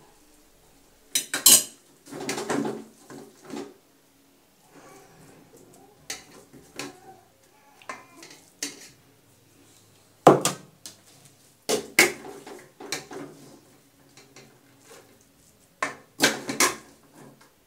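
A metal serving spoon scraping and clanking against a large aluminium cooking pot and a plate as cooked greens are dished out, in scattered sharp knocks with quiet gaps between.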